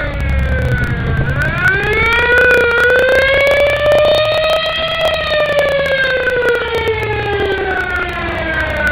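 A siren wailing: its pitch dips about a second in, climbs slowly to a peak about five seconds in, then slides slowly down again. Beneath it the low rumble of classic cars' engines passing at walking pace.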